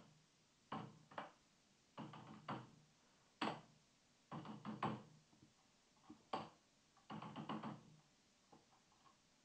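Computer keyboard typing in about six short bursts of keystrokes, with quiet pauses between them.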